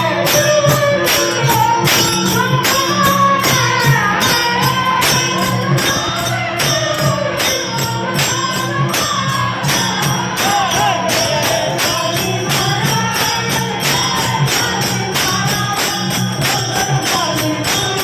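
Devotional singing: a voice carrying a wavering bhajan melody over a steady low drone, with metallic jingle or cymbal strikes keeping an even beat about three times a second.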